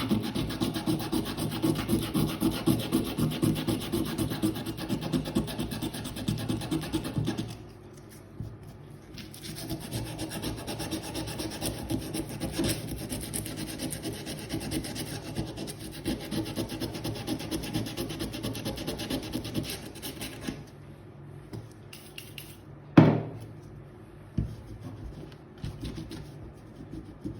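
Sandpaper rubbed back and forth in quick strokes over the metal nose of a rusty hand tool, scouring off the rust to bring up a shine. The rubbing pauses about seven seconds in, resumes more softly, then stops, with a sharp knock a few seconds before the end.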